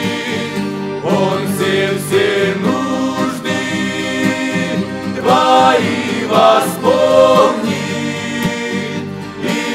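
Two piano accordions accompanying a male vocal group singing a Christian song in harmony, with sustained accordion chords under the voices.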